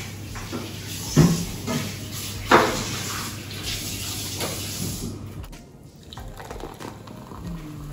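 Cola poured from a can into a glass tumbler, the liquid splashing and fizzing. Two short knocks sound in the first few seconds.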